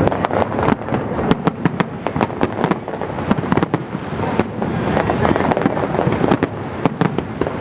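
Fireworks display going off: dense, rapid cracks and bangs, several a second, over a continuous rumble of shell bursts.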